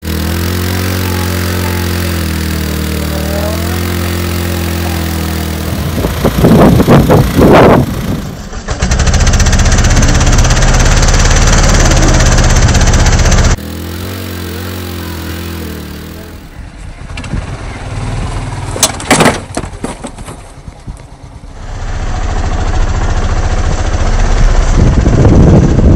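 A Hero Maestro scooter's small engine running and revving in bursts while its rear wheel spins, stuck in deep mud. There are abrupt changes where clips are cut together.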